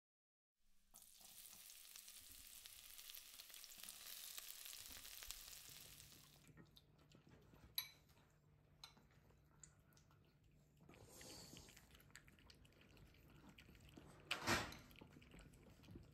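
Faint sizzling of hot olive oil in a small cast-iron skillet of vegetable ajillo, a steady high hiss that fades after about six seconds. A few light clicks of tableware follow, with a sharp knock near the end.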